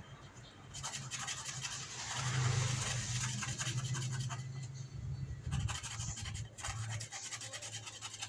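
A machine running with a steady low hum under a dense, rapid scraping and rasping noise.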